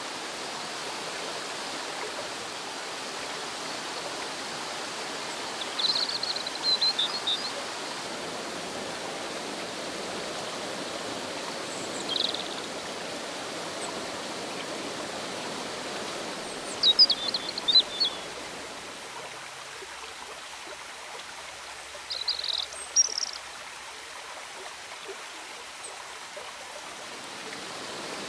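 Steady rush of a rocky river running over stones, with small birds chirping in short quick clusters four or five times. The rush grows a little softer about two-thirds of the way in.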